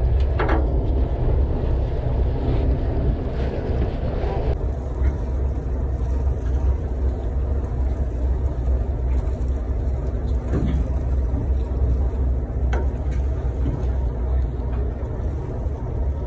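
Fishing boat's engine running with a steady low rumble, with a few faint clicks over it.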